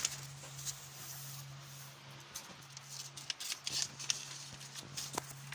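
Sheets of lined notebook paper rustling and crinkling as a hand grabs and handles them, in irregular crackles, over a steady low hum.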